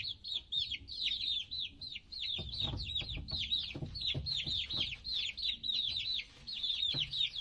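A group of baby chicks peeping continuously, many short, high, downward-sliding peeps overlapping several times a second, with soft low bumps and rustling beneath.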